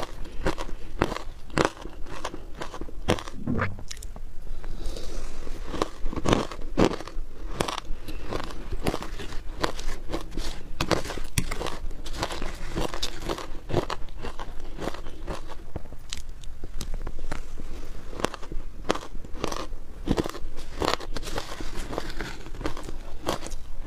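Shaved ice crunching close to a lapel mic: a metal spoon stirring and scraping through matcha-dusted shaved ice in a plastic tub, mixed with ice being chewed, in a dense run of sharp crackles.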